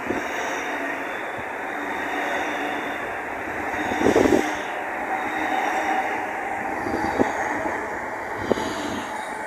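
Southeastern Class 395 Javelin electric train passing close by at speed: a steady rushing roar of wheels and air with a thin high whine over it. There is a heavy thud about four seconds in and sharp clicks near the end.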